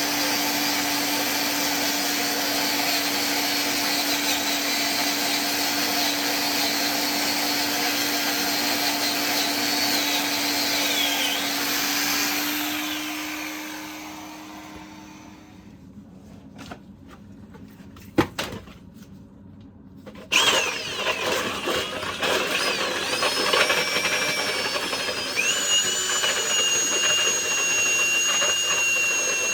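Electric power tool motor running steadily with a high whine, winding down and stopping about halfway through. After a few knocks it starts again, its speed stepping up twice near the end.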